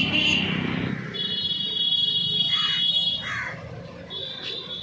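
Street traffic with a car engine pulling away, and a steady high-pitched beep lasting about two seconds, followed by a shorter one near the end.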